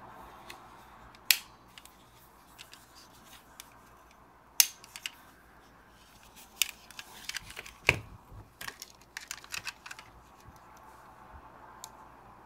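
Sharp clicks and light taps of a small diecast metal model car being handled, its opening doors clicked shut. There are two louder clicks a few seconds apart, then a run of quick taps and clicks in the second half.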